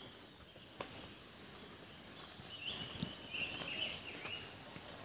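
Forest ambience with a thin, high-pitched animal call: a steady high note that breaks into louder warbling chirps from about two and a half to four seconds in. A single sharp click comes near the start.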